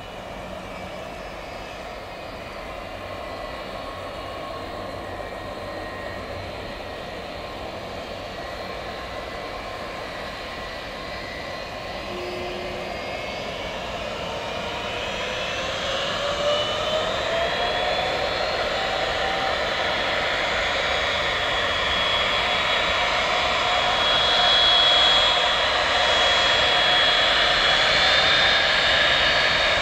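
Boeing 757's twin jet engines running with a steady whine as the airliner turns on the runway. About halfway through, the whine rises in pitch and grows louder as the engines spool up, then holds at the higher pitch.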